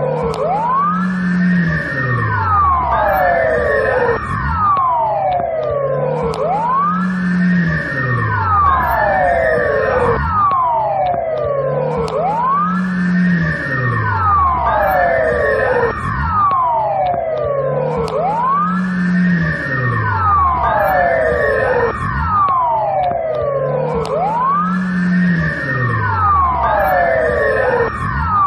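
Belarusian police siren wailing, its pitch sweeping up and down in overlapping glides in a pattern that repeats about every six seconds.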